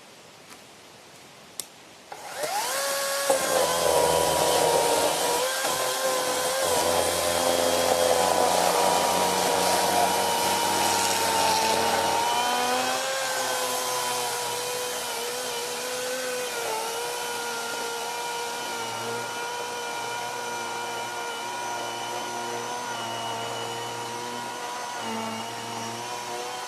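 Electric chainsaw motor starting about two seconds in with a quick rising whine, then running steadily at speed, its pitch sagging slightly a few times.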